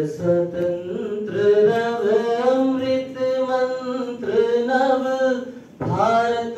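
A voice singing a slow devotional chant in long held notes that bend and slide in pitch, with a short break about five and a half seconds in.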